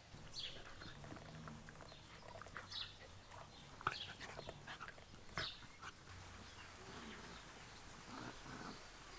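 A dog making small noises: faint short high squeaks and a few sharp clicks, the loudest about four and five and a half seconds in.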